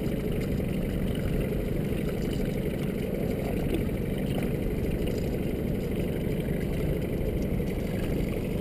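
Boat motor idling with a steady, even low drone.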